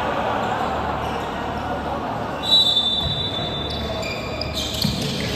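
Basketball game in a reverberant gym: ball bouncing on the hardwood court and players moving, with a long high squeal starting about two and a half seconds in that fits sneakers squeaking on the court, and shorter squeaks near the end.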